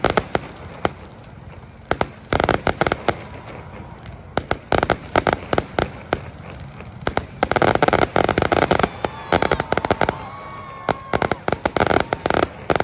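Fireworks going off in rapid crackling volleys, four dense clusters of sharp cracks with brief lulls between them.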